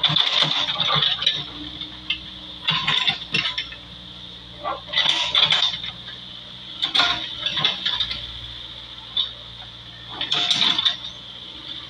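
Backhoe at work: its diesel engine runs steadily under about five bursts of metallic clanking and rattling, coming every two to three seconds, over a steady high whine.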